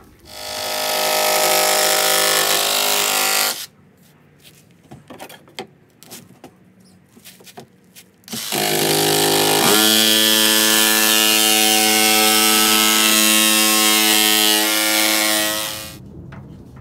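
Jigsaw cutting a KÖMA ALU block-off plate: two runs of the motor's steady whine with the blade chattering through the sheet, about three seconds and then about seven and a half seconds long, with clicks of the panel being handled in between. The second run rises in pitch and settles just before ten seconds in.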